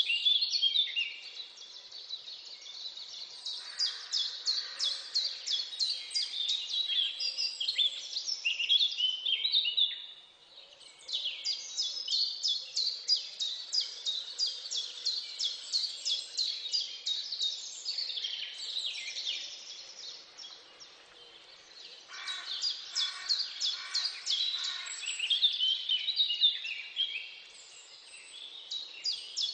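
Birds chirping outdoors, a busy run of rapid high-pitched repeated calls and short falling notes, breaking off briefly about ten seconds in and again around twenty seconds in.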